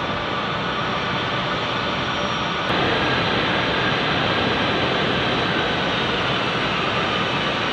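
C-17 Globemaster III turbofan jet engines running, a steady dense engine noise that steps slightly louder at an abrupt cut a little under three seconds in.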